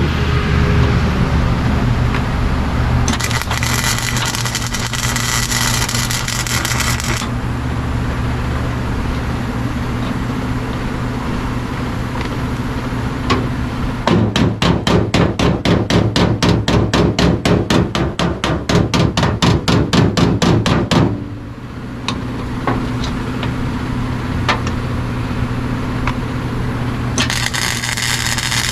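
Welding on sheet metal: a welding arc crackling and hissing in two spells, over a steady electrical hum. Midway comes a run of rapid metal-on-metal strikes, about six a second for some seven seconds.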